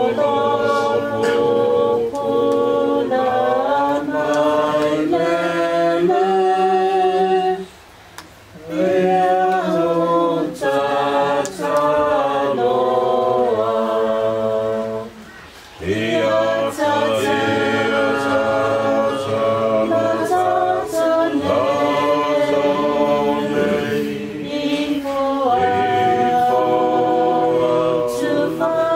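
A choir of voices singing a cappella in harmony, in long held phrases with two short breaks, about eight seconds in and around the middle.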